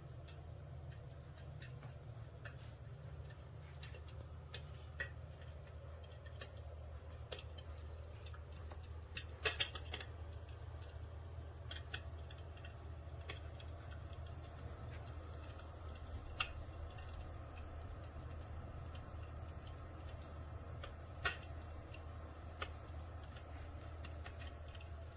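Electric fireplace insert's simulated fire-crackling sound: sparse, irregular pops and snaps, with a small cluster about ten seconds in, over a steady low hum.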